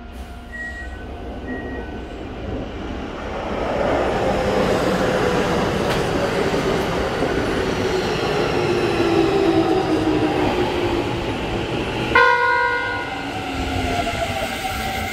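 Keikyu 1000-series electric train pulling in on the adjacent track: rising running and wheel noise, with a motor whine falling steadily in pitch as it brakes. About twelve seconds in, a short train horn blast starts abruptly.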